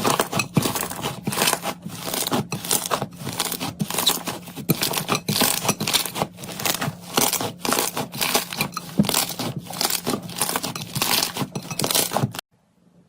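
Slime being squeezed and pressed by hand, giving a fast, irregular run of sticky crackling and popping clicks that cuts off suddenly near the end.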